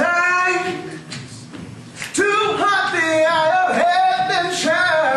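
Men's voices singing a cappella: long held notes that bend in pitch, with no instruments.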